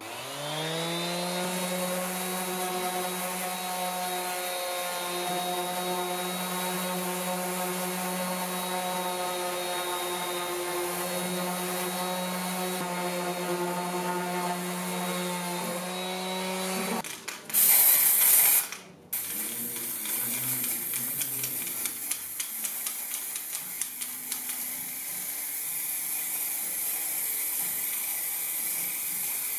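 Metabo random orbital sander starting up and running steadily against wood for about seventeen seconds, then switching off. A loud burst of aerosol spray paint hiss follows for about a second and a half, then scattered light clicks.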